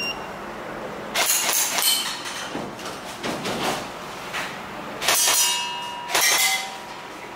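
Airsoft rifle fired in several quick strings of shots, with sharp metallic clinks and brief ringing after some of them.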